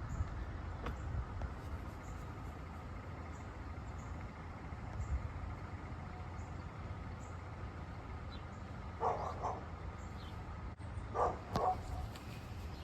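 Low, steady outdoor background rumble, broken by two pairs of short, bark-like animal calls: one pair about nine seconds in and another about eleven seconds in.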